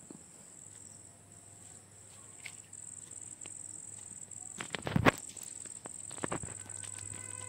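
Steady high-pitched chirring of crickets. A few sharp knocks come about five seconds in, with two more about a second later.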